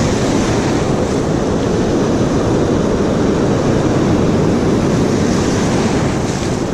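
Ocean surf breaking and washing up a sandy beach, a steady loud rush, with wind buffeting the microphone.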